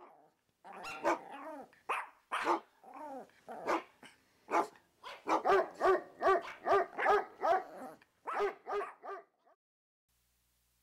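Dog barking repeatedly: scattered barks first, then a quick even run of about three barks a second in the middle, stopping shortly before the end.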